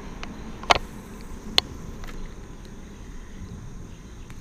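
Low steady rumble of wind and handling noise on a camera microphone, with two sharp clicks about a second apart and a few fainter ticks while a spinning rod and reel are worked.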